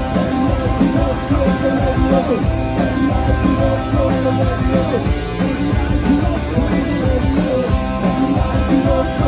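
Live rock band playing an instrumental passage, with electric guitar lines bending in pitch over bass and drums.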